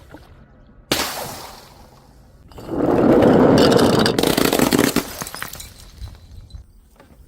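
Glass breaking: a sharp crack about a second in, then a louder, longer crash of shattering glass from about two and a half seconds in, trailing off in scattered crackles.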